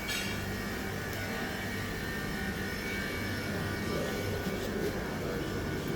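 Steady mechanical hum with an even rushing noise, no clear events.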